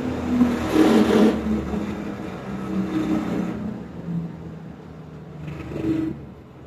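2 hp dust collector motor and impeller winding down, its hum falling steadily in pitch and fading, with a short burst of noise about a second in.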